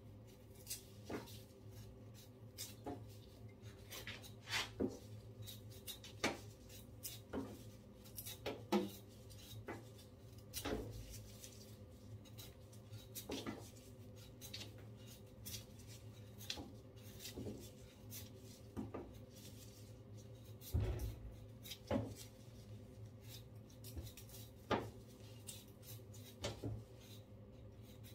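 Small kitchen knife scraping and cutting the skin off a taro root by hand, in irregular scrapes and small knocks, over a steady low hum.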